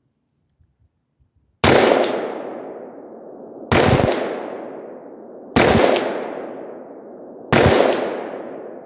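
Four shots from an 11.5-inch-barrel AR-15 firing .223, about two seconds apart, each followed by a long echo that dies away.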